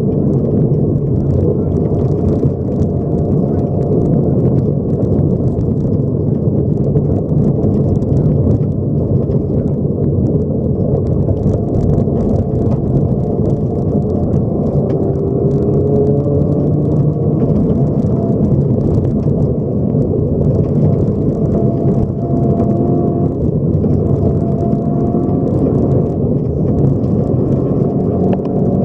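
Subaru rally car driven at speed on a gravel stage, heard from inside the cabin: a loud, steady low rumble of engine and road noise, with the engine pitch rising and falling a little, and gravel ticking against the car's underside.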